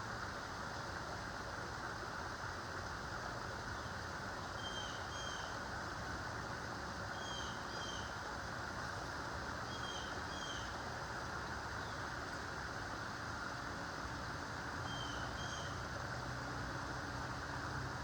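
A bird repeating a short, high two-note call four times, a few seconds apart, over a steady rushing background noise.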